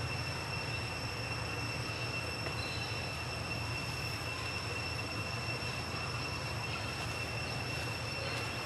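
Steady background noise: a low rumble with a constant high-pitched whine over it, and no distinct events.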